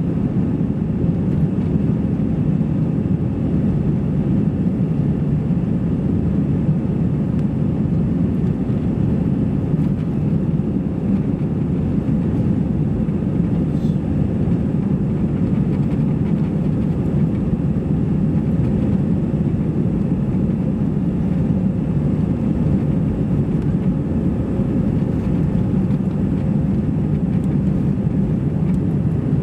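Steady cabin noise inside an Airbus A320-200 on its takeoff roll: the engines at takeoff thrust and the rumble of the undercarriage on the runway, an even low noise that holds level throughout.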